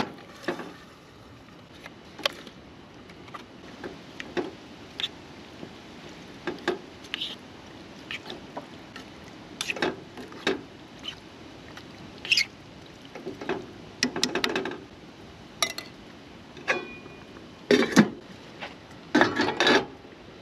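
Utensils and dishes clinking and knocking at irregular intervals during a meal, with a busier flurry of clatter about two-thirds of the way through and again near the end.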